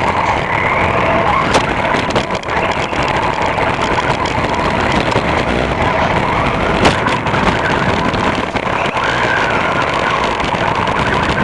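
HPI Blitz RC truck driving, heard from onboard: its brushless electric motor and gears whine, the pitch wavering up and down with the throttle, over a steady noise of tyres on wet pavement. Two sharp knocks stand out, one about a second and a half in and one near the middle.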